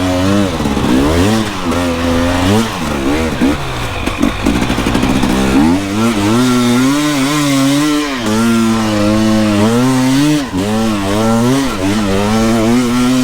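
Dirt bike engine being ridden hard, revving up and down over and over, its pitch rising and falling every second or so.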